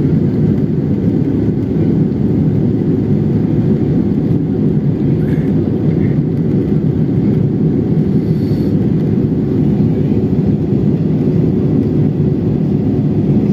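Jet airliner cabin noise at a window seat over the wing: a loud, steady drone of the engines and the airflow, heaviest in the low range, as the plane descends toward landing.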